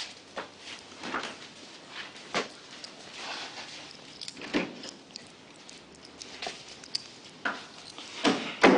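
Irregular knocks, clicks and rustling of things being handled, with a louder knock near the end.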